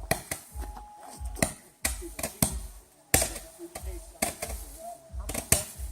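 Fireworks going off: an irregular series of sharp pops and cracks, several a second.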